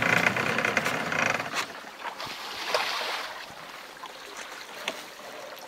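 Wooden boat moving slowly along a shallow creek bank: water swishing around the hull, louder for the first second or two and then quieter, with a few light knocks.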